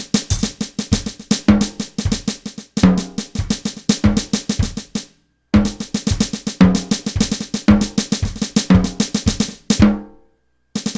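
Electronic drum kit played direct into the recording through an aux cable: a busy groove of fast snare and bass drum hits with rolls. It stops dead for a moment about five seconds in, and again near the end before starting up once more.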